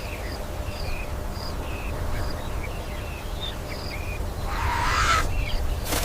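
Outdoor nature ambience: a steady low rumble under short, scattered high bird chirps, with a brief rustle near the end.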